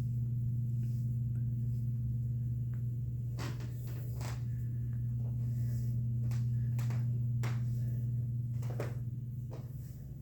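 A steady low hum, with a few short soft clicks and rustles about three and a half seconds in and again in the second half.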